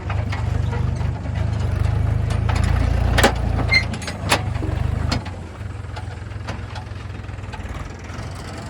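Heavy diesel machinery engine running steadily, with a few sharp metal clanks around the middle; a little after halfway the engine drops to a quieter, lower idle.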